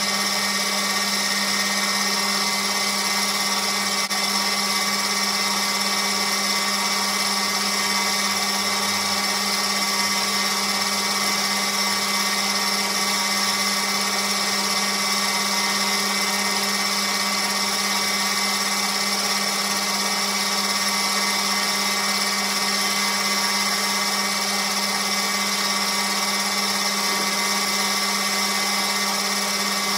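Metal lathe running steadily at speed while a tool turns down an aluminium bar: an even motor-and-gear hum with a steady whine over it, unchanging throughout.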